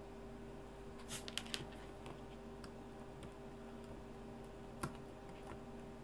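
Faint light clicks and taps from desoldering wires off a veroboard with a soldering iron: a quick cluster of three or four about a second in and a single click near the end, over a low steady hum.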